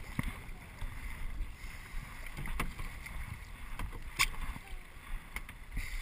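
Kayaks on open water: paddles dipping and water sloshing against the hulls, with two sharp knocks about two and a half and four seconds in.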